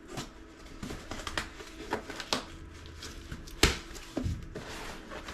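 Packaging being handled by hand as a shipping box is opened: a string of irregular taps, scrapes and knocks, the loudest a sharp knock about three and a half seconds in.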